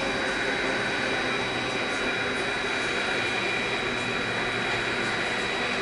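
Singapore MRT subway train running through a tunnel, heard from inside the car: a steady rushing noise with a thin, steady high whine.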